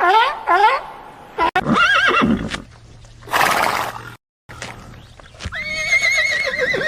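Horse neighing: a few short calls, a short breathy burst in the middle, then a long wavering whinny near the end.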